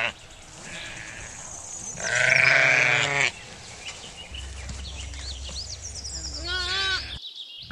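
Lamb bleating: a long, loud bleat about two seconds in, a faint one before it, and a shorter quavering bleat near the end.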